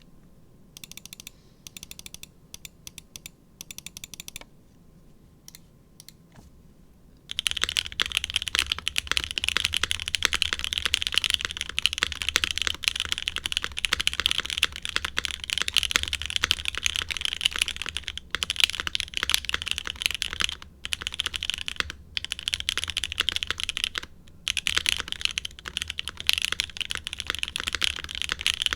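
Mechanical keyboard with lubed Gateron Oil King linear switches, a polycarbonate plate on an o-ring mount and GMK keycaps being typed on. A few scattered, quieter keystrokes for about the first seven seconds, then fast continuous typing with a few short pauses.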